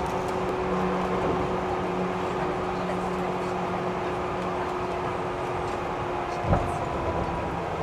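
Running noise heard inside a Seibu 3000 series electric train car: a steady rumble of wheels on track with a constant low hum, and one sharp knock about six and a half seconds in.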